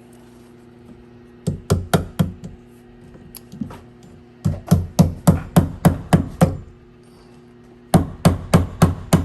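Hammer driving a fastener into wood: three runs of quick, evenly spaced blows, about four a second, with short pauses between runs. A faint steady hum sits underneath.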